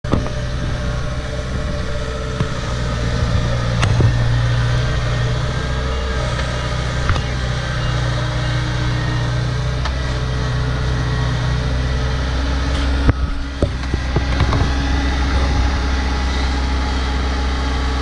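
Kubota DC70 combine harvester's diesel engine running steadily as the tracked machine moves along, with a few sharp clicks about four seconds in and again around thirteen seconds.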